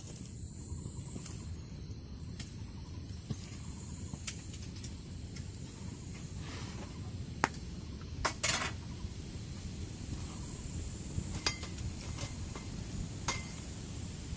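Metal cookware and utensils clinking and knocking now and then, loudest about halfway through, over a steady low rumble.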